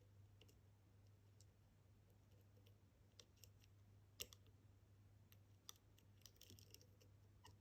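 Faint, irregular light clicks of a lock pick probing and lifting the pin stacks inside a Kaba experT high-security dimple cylinder, about a dozen ticks scattered unevenly, the clearest about four seconds in. A low steady hum sits underneath.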